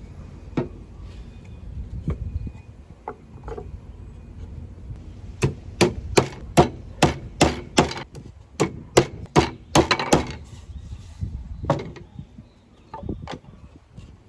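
Hammer striking wood: a quick run of about fifteen sharp knocks, three or four a second, in the middle, with a few single knocks before and after.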